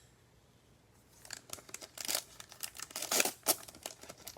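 A foil trading-card pack wrapper being torn open and crinkled in the hands: a dense run of sharp crackling and ripping that starts about a second in.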